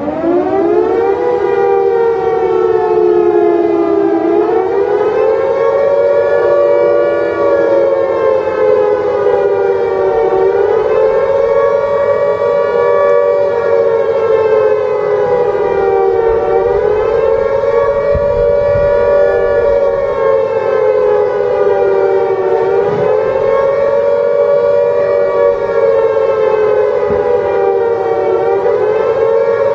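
A siren winding up and then wailing in a slow rise and fall, each cycle about six seconds long.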